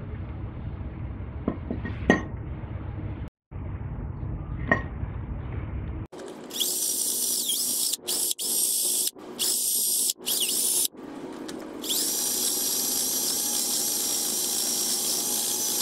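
Cordless drill spinning a cleaning bit in the hardware seats of a brake caliper bracket. It runs in several short bursts, then in one longer steady run. Before it starts there are a few light handling clicks.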